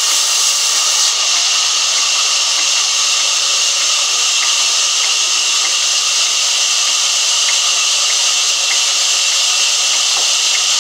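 Large vertical band saw ripping a thick log lengthwise: a loud, steady high hiss of the blade cutting through the wood, with faint ticks now and then.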